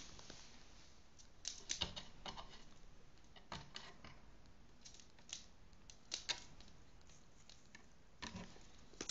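Faint, irregular clicks and taps of brass drop handles and a key rattling against a wooden cabinet door as a crow tugs at a ribbon tied through them.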